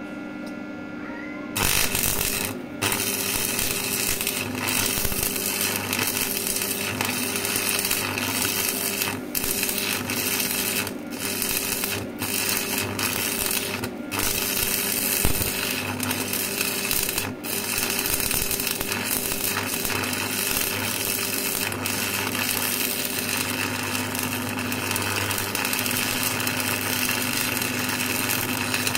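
Stick (arc) welding on steel: the electrode's arc crackling and sizzling from about two seconds in until near the end, with a few brief breaks where the arc drops out, over a steady low hum.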